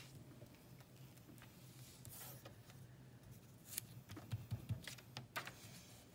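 A folded paper passport being stamped and handled on a wooden table: a few light taps and paper rustles, most of them about four to five seconds in, over a steady low room hum.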